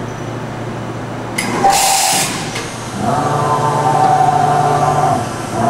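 Okuma & Howa Millac 561VA CNC vertical machining center running a program without a tool, its axis drives whining as the table makes positioning moves. The whine stops and starts again: it is strongest from about three seconds in until just past five seconds, and it comes back near the end. A short loud hiss comes about a second and a half in.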